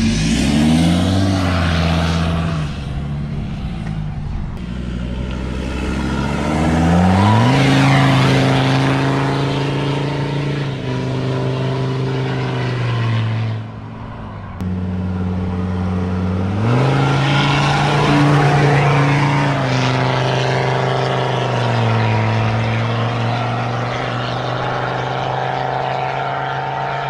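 Ford Ranger 3.2 five-cylinder turbodiesel running through a straight-through exhaust with only a chrome-tipped pipe and no muffler. The engine note climbs and holds steady several times as the truck accelerates, dropping back when the driver eases off.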